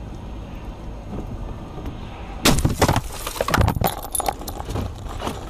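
Low road rumble inside a moving car, then about two and a half seconds in a sudden car crash: a loud crunching impact followed by breaking glass and rattling debris for about two seconds.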